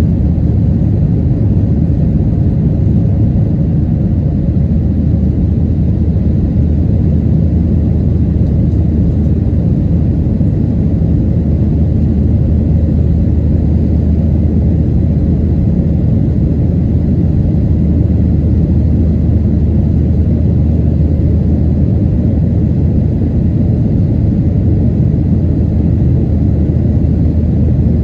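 Cabin noise of a Boeing 737-800 climbing after take-off: its CFM56-7B engines and the air rushing past the fuselage make a steady, deep noise with a constant low hum underneath.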